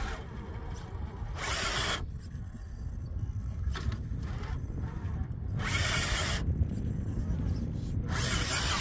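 A 1/10-scale Axial SCX10 III RC crawler's electric motor and tyres spinning in three short bursts of throttle as it struggles up a steep, muddy climb, over a steady low rumble.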